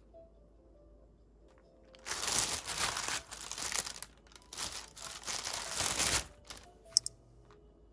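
Thin plastic shopping bag crinkling as it is handled, in two bouts of about two seconds each with a short pause between, then a single sharp click near the end.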